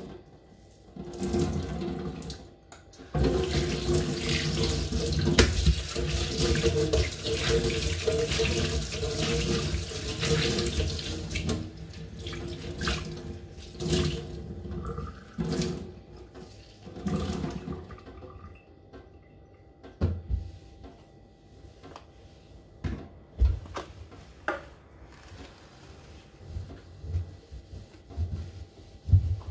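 Kitchen tap running into a stainless steel sink while hands wash at it, loud and steady for about ten seconds, then in shorter runs. In the later part the water is mostly off, and there are scattered sharp knocks and clatters as things are handled and a cloth wipes the steel drainboard.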